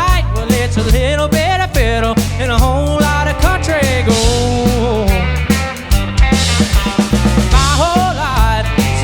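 A band playing an upbeat rock and soul song, with drums keeping a steady beat, bass and a bending lead melody line.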